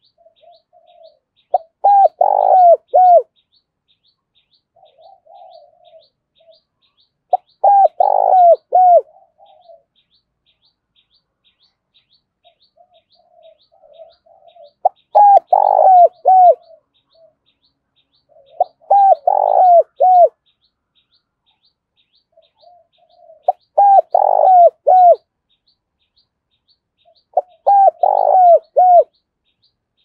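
Spotted dove giving its intense challenge cooing: about six loud phrases of three or four coos each, coming every four to six seconds, with soft low burbling notes between the phrases.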